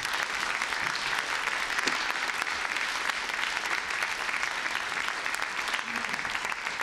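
Audience applauding steadily, many hands clapping at once, in response to the end of a talk.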